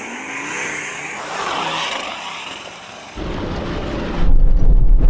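A modified VW Touareg's tuned 5-litre V10 diesel revs hard under load up a steep dirt climb, its pitch rising about a second in. About three seconds in it turns much louder: a deep exhaust rumble with tyre noise, heard up close.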